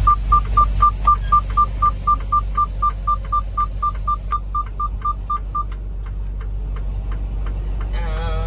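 Rapid electronic beeping, about five short beeps a second at one high pitch, that stops after about five and a half seconds, over the low rumble of the truck's engine. A voice comes in near the end.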